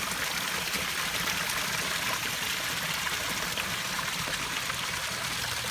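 Backyard rockery waterfall and stream, water splashing and running steadily over the rocks in an even, unbroken rush.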